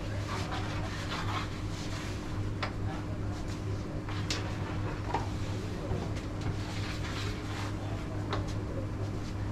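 Carrom board play: a few sharp, scattered clicks as the striker is flicked and knocks into the wooden carrom men, the loudest about four and a half seconds in. A steady low hum runs underneath.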